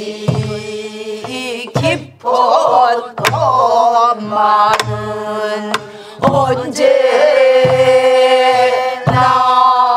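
A group singing a Korean Namdo folk song (namdo minyo) in long, wavering held notes. Soribuk barrel drums accompany them, giving a steady pattern of deep thumps and a few sharp clicks.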